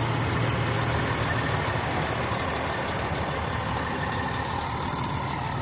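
Kenworth T800 dump truck's Caterpillar C12 diesel engine running at low speed as the truck moves slowly past close by. It is a steady low rumble that fades a little near the end.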